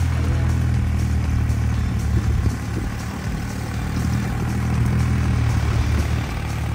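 Compact tractor engine running steadily as the tractor drives past towing a beach-cleaning sand rake.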